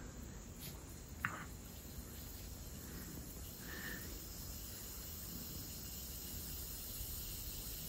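Quiet background hiss with a single soft click about a second in and a brief faint high tone near the four-second mark.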